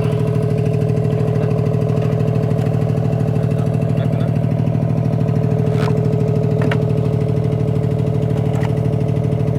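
A motor running steadily with a pulsing hum, with a few light clicks near the middle and toward the end.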